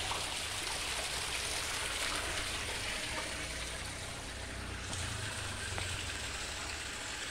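Steady splashing and trickling of water in a shallow concrete pond crowded with live catfish, an even hiss that eases a little about three seconds in.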